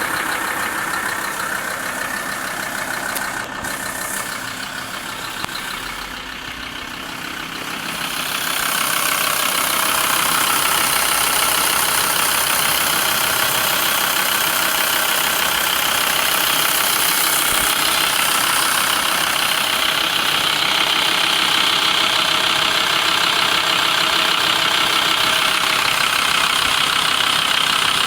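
Volkswagen LT 35's 2.5 TDI (AHD) five-cylinder diesel idling with a knock. The owner places the knock near the camshaft; it is still heard at idle after the vacuum pump and its rod were replaced. The sound gets louder about eight seconds in.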